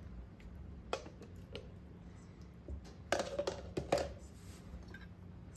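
A spoon clinking and scraping against a jar and pan as pesto sauce is added to the pasta sauce, with a quick cluster of clicks and scrapes about three seconds in, over a steady low hum.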